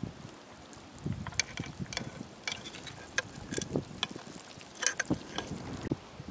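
Crabs moving over rock in a shallow pool: irregular sharp clicks and ticks of hard legs and shells tapping on stone, some with a light thud. The clicks bunch up from about a second in and thin out near the end.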